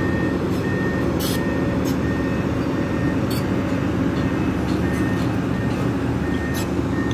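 Steady rumble of a heavy vehicle running, with a faint high beep repeating about every two-thirds of a second and a few sharp clicks.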